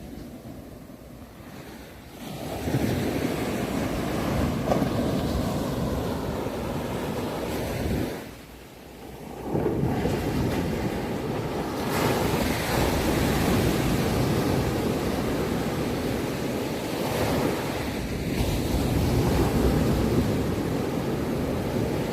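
Ocean surf: waves breaking and washing in as a steady rushing noise, with a short lull about a third of the way through before the next wave surges in.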